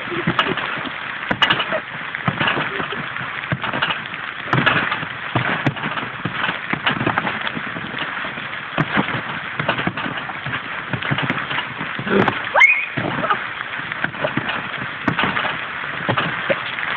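Rain hissing steadily, with repeated soft thuds of people landing on a wet trampoline mat about once a second. A short rising vocal cry comes about twelve seconds in.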